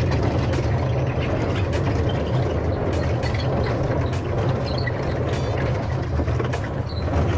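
Pickup truck running with a steady low engine rumble and road noise.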